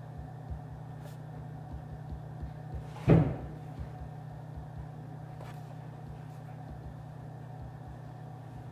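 Office ambience: a steady low hum with faint scattered knocks, and a single loud, dull thud about three seconds in.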